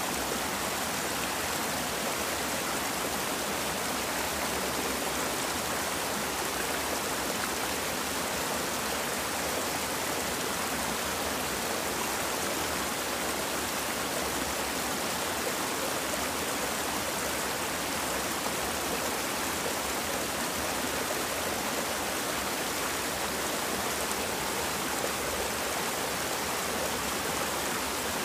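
Small waterfall cascading over boulders into a shallow stream pool, water rushing steadily and evenly.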